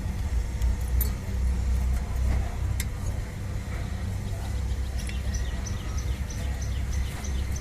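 Car on the move, a steady low road and engine rumble, with a few light knocks and, in the second half, a quick run of high ticks about three a second.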